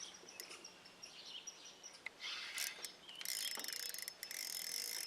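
Fishing reel clicking and ratcheting in quick succession during the fight with a hooked fish, starting about three seconds in. Before that, faint bird chirps.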